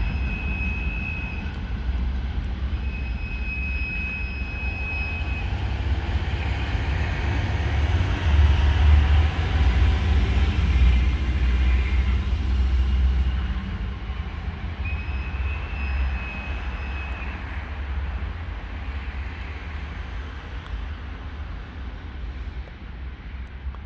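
ChME3 diesel locomotive passing with a freight train: a heavy low rumble and the rush of the wagons, loudest in the middle and then fading. Three high-pitched steady horn blasts, one at the start, one about three seconds in and one about fifteen seconds in.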